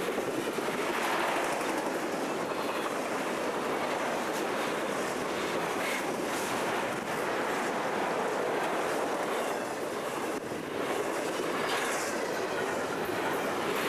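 Intermodal freight train cars carrying trailers and containers rolling steadily past close by, their steel wheels running on the rails.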